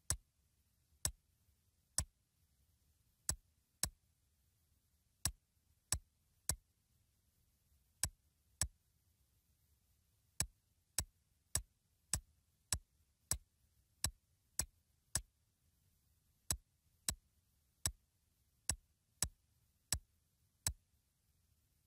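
Computer mouse clicks, single sharp clicks at an uneven pace that quickens to about two a second in the second half, as the simulated enter switch is clicked again and again to count cars up.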